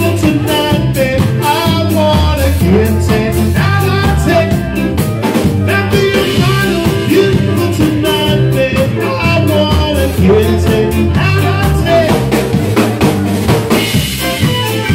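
Live band playing an upbeat song: drum kit with snare rimshots over a steady bass line, with a voice singing at times.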